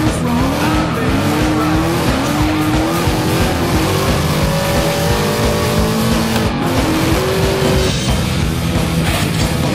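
Ford Mustang drift car revving hard with rising and falling engine pitch while its rear tyres squeal and skid in a long slide, over background music.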